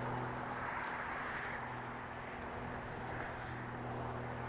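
Steady distant motor-vehicle noise: an even rushing hum with a low steady drone underneath, unchanging throughout.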